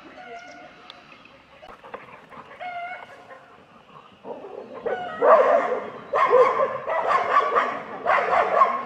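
Several dogs barking at a gaur. The barking is quieter and scattered at first, then turns loud, fast and overlapping about five seconds in and keeps going.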